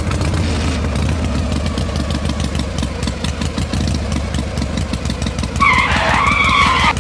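Steady rapid chugging of a small tractor engine, the running sound of a miniature two-wheel walking tractor. Near the end a loud, high, wavering squeal joins it for about a second and a half.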